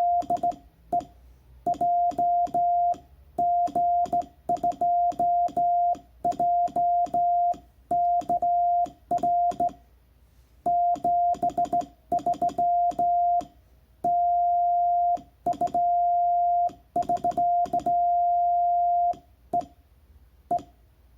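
Hand-sent Morse code, Japanese Wabun code: a steady beep of about 700 Hz from the Icom IC-703 transceiver's sidetone, keyed in dots and dashes, with the telegraph key's contacts clicking on each element. It pauses briefly between groups, and near the end only a few key clicks are heard.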